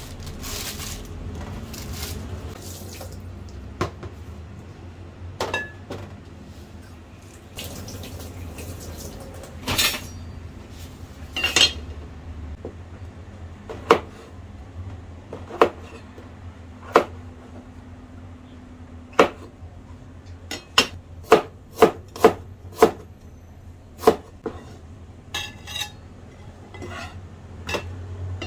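Kitchen food preparation: sharp clicks and knocks of utensils against dishes and pans. They come about once a second, then faster, about twice a second, a little past the middle, over a low steady hum.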